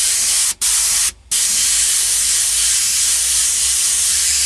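Airbrush spraying paint, a steady hiss of compressed air. It cuts out sharply twice, once for an instant about half a second in and again for a moment just after one second in.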